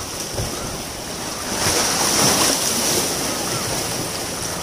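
Ocean waves washing ashore, a steady surf noise with one wave swelling loudest about a second and a half in, then easing off.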